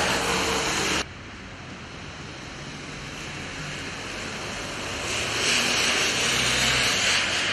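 Steady outdoor hiss with no distinct events. It drops abruptly about a second in, then builds back up over the next four seconds to a steady level.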